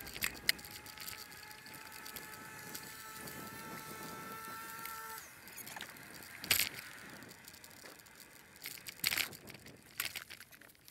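Faint sounds of a bicycle being ridden: low rattling with a few sharp clicks. A faint steady whine runs through the first half and cuts off suddenly about five seconds in.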